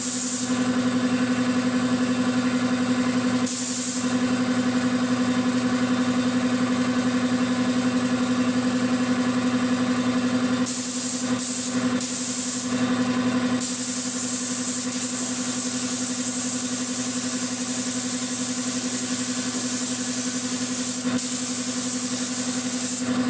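Gravity-feed paint spray gun hissing as it atomises white paint, in short spurts for the first half and then held almost steadily. Under it, a motor, most likely the air compressor feeding the gun, runs with a steady hum.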